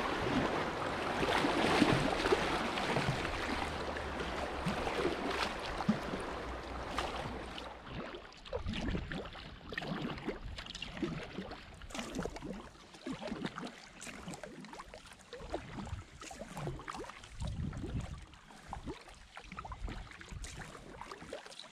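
Kayak paddling on a river: a steady rushing noise fades over the first several seconds, then paddle strokes dip and splash in the water at an uneven pace, about one every second or two.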